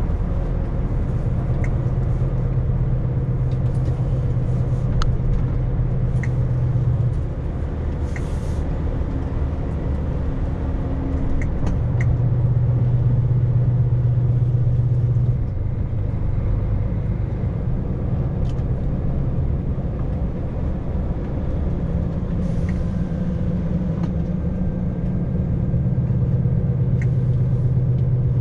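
Heavy lorry's diesel engine and road noise heard from inside the cab while driving, a low drone that swells and eases several times, with a few faint light clicks and rattles.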